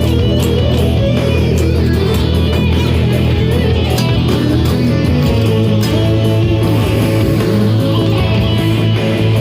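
Electric guitar played with fast, continuous picking as a right-hand warm-up exercise, with dense low notes ringing under the pick attacks. The low notes change about halfway through.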